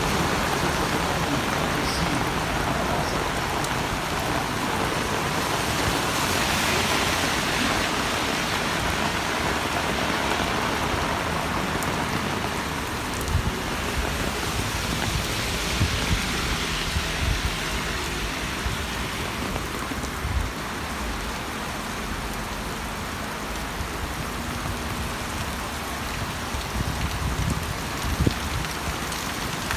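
Heavy rain falling in a steady hiss, with a few short low knocks now and then.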